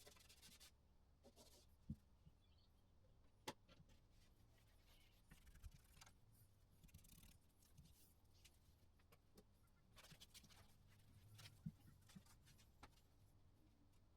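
Near silence, with faint scattered clicks and light rubbing; a few sharper ticks about two, three and a half, and eleven and a half seconds in.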